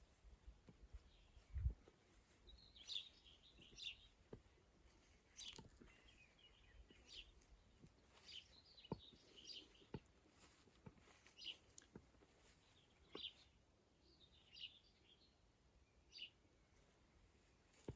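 Faint birdsong: small birds giving short chirps and twitters at intervals of about a second. A brief low thump about a second and a half in.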